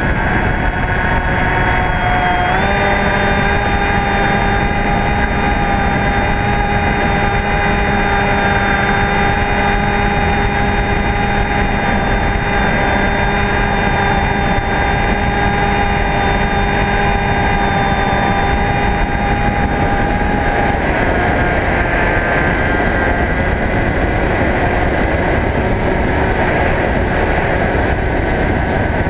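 HobbyKing Bixler RC plane's electric motor and propeller whining steadily over wind rushing across the nose-mounted camera's microphone. The whine steps up slightly in pitch about two and a half seconds in and gives way to mostly wind noise about twenty seconds in.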